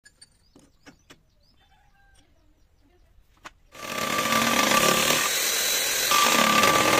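A few light metal clicks and knocks, then at just under four seconds a power-driven milling attachment on a lathe toolpost starts up and runs steadily with a high whine, its cutter spinning beside the workpiece.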